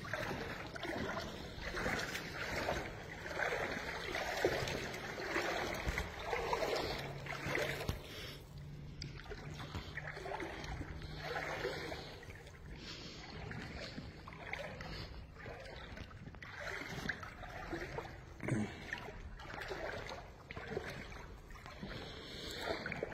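Footsteps wading through standing floodwater in rubber water boots, each step sloshing and splashing, about one a second. The steps are louder in the first several seconds and fainter after that.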